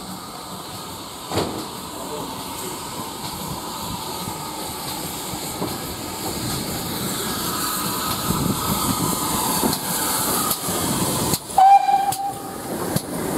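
GWR Manor class 4-6-0 steam locomotive moving past at close range, a steady hiss of steam growing louder as it nears, with one short whistle blast near the end.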